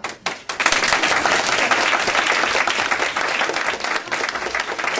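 Audience applauding: a few scattered claps, then full, steady applause from about half a second in.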